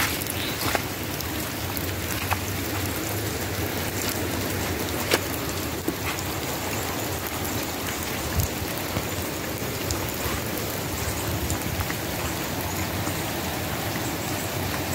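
Steady rain falling, an even hiss with scattered sharp drop ticks, likely drops striking the phone or camera.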